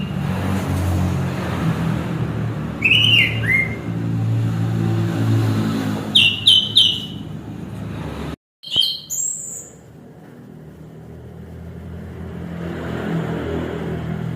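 Orange-headed thrush singing: a few short phrases of clear, gliding whistled notes, spaced a few seconds apart. A low engine-like hum runs underneath and stops with a brief dropout about eight seconds in.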